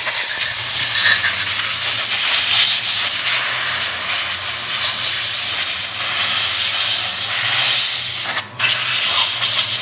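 Compressed-air blow gun hissing steadily as it blows rinse water off a Yamaha Nouvo scooter's aluminium crankcase, with a short break about a second and a half before the end.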